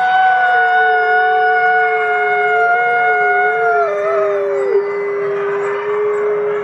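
Two wolves howling together in long, steady tones at two different pitches. The higher howl falls away with a downward slide about four seconds in, while the lower howl holds on.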